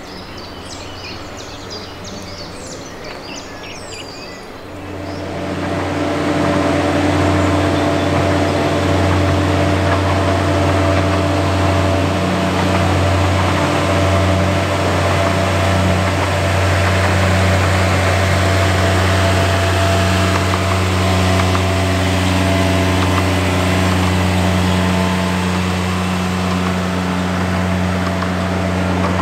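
Birds chirping for the first few seconds, then a miniature-railway diesel locomotive's engine comes in and runs steadily as it hauls a train of passenger carriages past. The engine is a low, even drone that stays at a steady level to the end.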